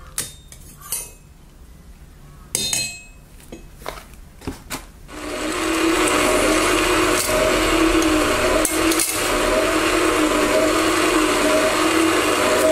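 A few scattered metal clinks and knocks, then about five seconds in a Hitachi band saw starts up, rising to a loud, steady run with a constant hum.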